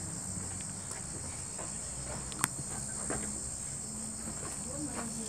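Insects buzzing in a steady, high-pitched chorus, with a single sharp click about halfway through.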